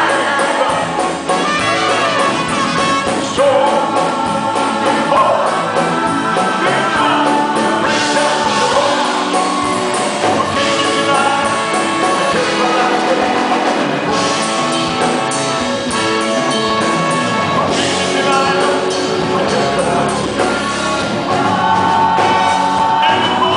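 A male lead vocal sings with a live band of brass, drums and keyboards, heard as a concert performance in a theatre. The music is loud and continuous.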